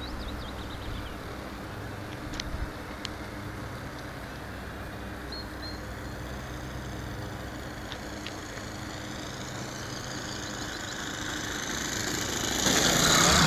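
Radio-controlled model airplane engine running steadily at a distance. Its high whine rises in pitch, and it grows much louder near the end as the plane comes in low and close.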